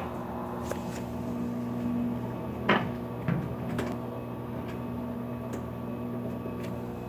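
Electrolux washing machine running with a steady hum, with three short knocks in quick succession near the middle: the abnormal noise the owner is complaining of.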